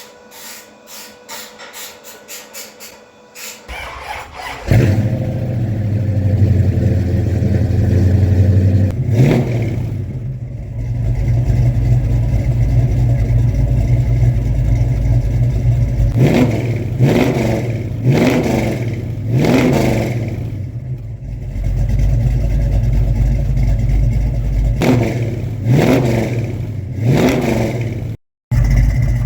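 Ford 351 Windsor roller V8 with a Trick Flow stage 1 cam: light clicking first, then the engine fires up about five seconds in and runs with several quick revs that rise and fall back.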